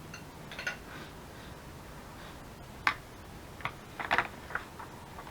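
Scattered light clicks and taps from paper and small craft pieces being handled on a tabletop. The sharpest comes about three seconds in, followed by a quick cluster of clicks about a second later.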